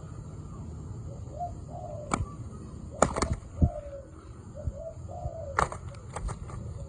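Spotted doves cooing in short, low phrases, three times, mixed with several sharp snaps of the kind wing flaps or a bird hopping make.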